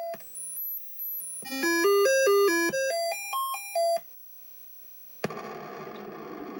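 Commodore 64 SID sound chip playing a diagnostic cartridge's sound test: a quick run of stepped electronic notes going up and down in a tune, with a few very high notes before it, stopping about four seconds in. After a short gap a steady hiss starts. The owner takes this output as a sign that the SID chip is faulty.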